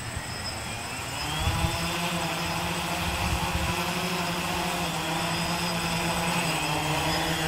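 Gaui 500X quadcopter's electric motors and propellers spooling up for takeoff. The whine rises in pitch over the first second and a half, then settles into a steady buzzing whine as it flies.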